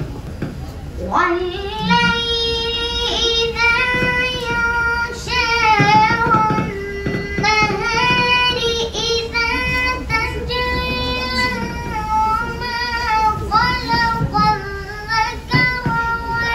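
A boy's voice chanting solo and unaccompanied into a microphone: a religious chant in long held notes with ornamented turns, pausing briefly for breath.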